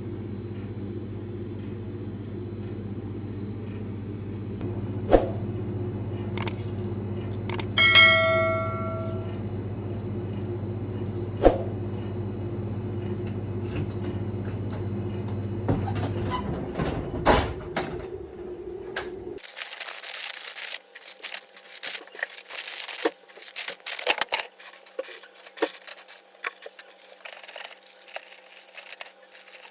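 Car running, heard from inside the cabin as a steady low hum, with a few sharp clicks and one bright ringing ding about eight seconds in. The hum dies away a little past the middle, leaving scattered light clicks, taps and rustling.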